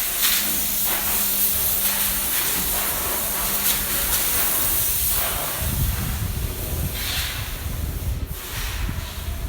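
Steady, loud hiss of compressed air with several brief louder gusts. A low hum stops about two seconds in, and a low rumble comes in from about five and a half seconds.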